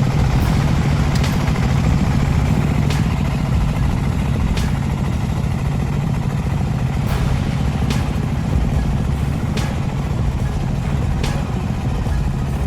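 Tractor engines running under load up a steep slope, a steady low rumble with a few sharp clicks now and then.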